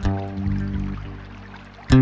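Background guitar music: a plucked note rings out and slowly fades, then a loud new strum comes in just before the end.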